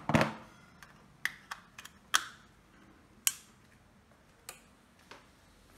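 Sharp plastic clicks and taps, about ten at uneven spacing, as a power plug is pushed into a wall socket adapter and its cable handled. The loudest come near the start, about two seconds in and just after three seconds.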